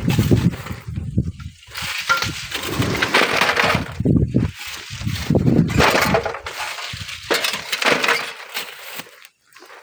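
Sand and stones crunching and crumbling in irregular bursts, with strong wind rumbling on the microphone.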